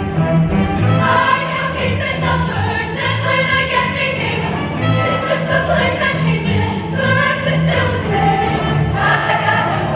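A women's show choir singing with a live backing band, the bass keeping a steady beat.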